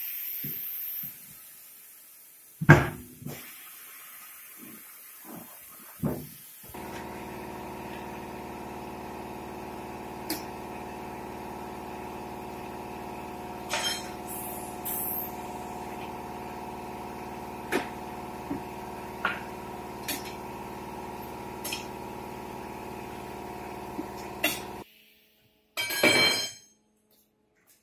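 Tyre-changer machine's turntable motor running steadily for about eighteen seconds as a tyre is worked off a steel wheel, with scattered clicks and knocks of metal and tyre bead, then stopping suddenly. A sharp knock comes before the motor starts, and a short loud burst of noise follows soon after it stops.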